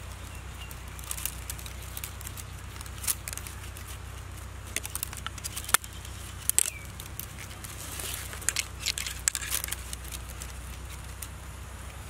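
Split wild-vine strands rustling and clicking against each other as they are threaded by hand through a woven basket: scattered sharp clicks and ticks, busiest in the middle and again after about eight seconds, over a steady low hum.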